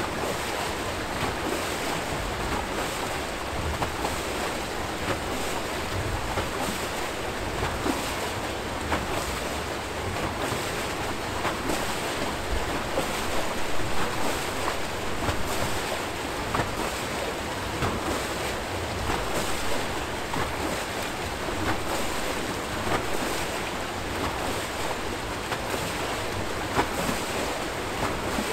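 Water rushing and churning out of the base of a turning Archimedes-screw hydro turbine: a steady splashing with frequent brief, louder splashes.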